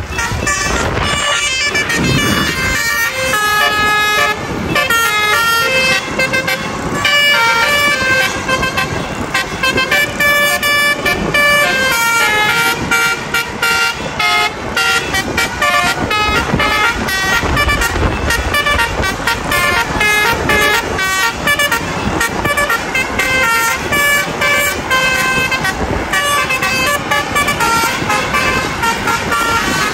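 Bus basuri musical horns playing a tune: a quick run of short horn notes stepping up and down in pitch, going on without a break.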